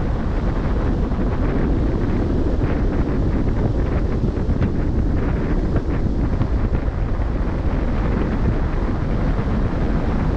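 Steady wind buffeting the microphone on a cruise ship at sea, with the rush of sea water underneath.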